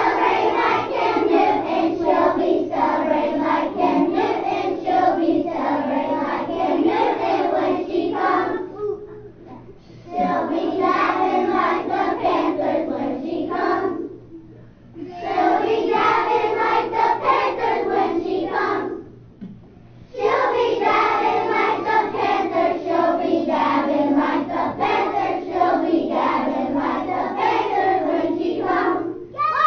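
A group of young children singing a song together in unison, in four sung stretches separated by short breaks.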